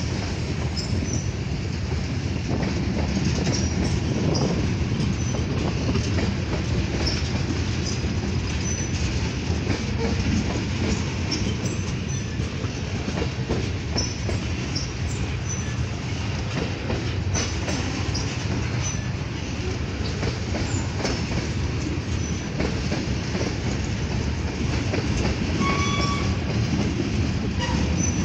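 Freight cars (covered hoppers, tank cars and double-stack container well cars) rolling past close by: a steady rumble of steel wheels on the rails, with scattered clacks from the trucks.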